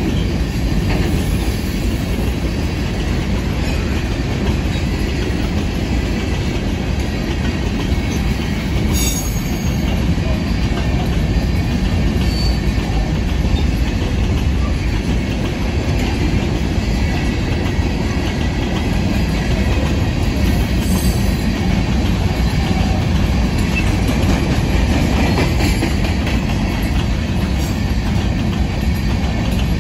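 Empty open-top hopper cars of a freight rock train rolling past: a loud, steady rumble of steel wheels on rail.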